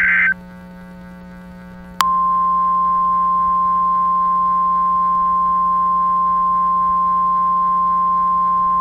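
The tail of an Emergency Alert System SAME header data burst, a harsh buzzy screech that cuts off a moment in, then about two seconds in the NOAA Weather Radio 1050 Hz warning alarm tone starts: one loud, steady, pure beep held without a break.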